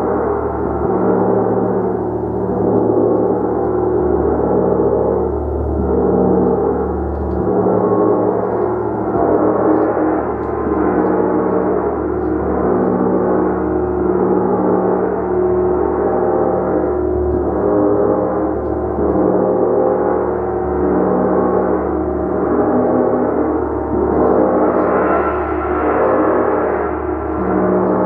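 Large hammered gong played continuously, giving a loud, sustained wash of many overlapping ringing tones. The sound swells with each new stroke about every two to three seconds.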